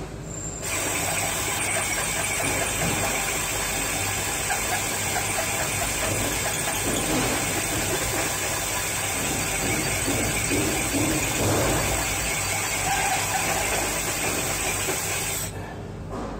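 Cordless drill running a hole saw bit, grinding steadily through very hard ceramic wall tile, slow going because the tile is so hard. The grinding starts under a second in and stops about a second before the end.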